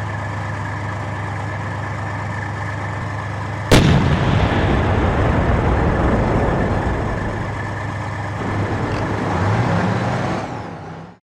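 Tank engine running steadily, then a single loud cannon shot about four seconds in, followed by louder rumbling that swells near the end and cuts off abruptly.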